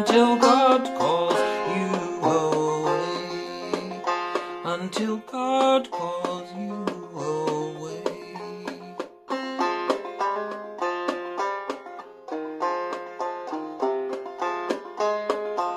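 Five-string banjo played clawhammer style: an instrumental passage of plucked notes and chords in a steady rhythm, with a brief pause about nine seconds in.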